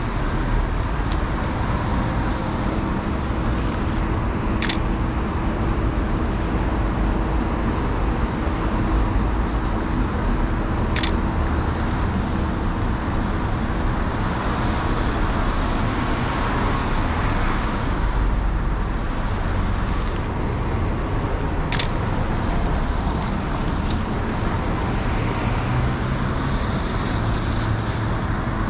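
Steady city street traffic noise, with three sharp clicks of a Sony A7R2 camera's shutter spread across it.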